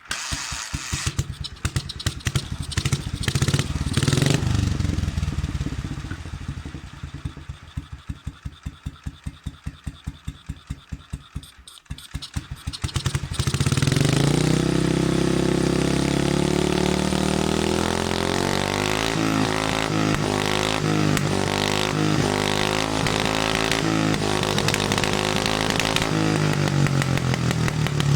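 BMW R25/2's single-cylinder four-stroke engine running on an exhaust test: it revs up about four seconds in, falls back to a slow idle with separate firing pulses, then is suddenly held at steady higher revs from about halfway through.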